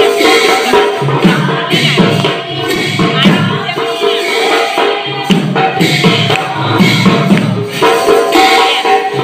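Group singing with a khol barrel drum, a pair of small hand drums and small hand cymbals keeping a steady rhythm.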